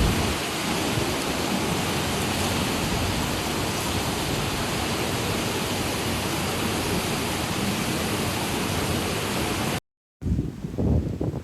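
Heavy wind-driven rain in a severe thunderstorm, a steady dense rush. About ten seconds in it cuts off abruptly, and then uneven gusts of strong wind buffet the microphone.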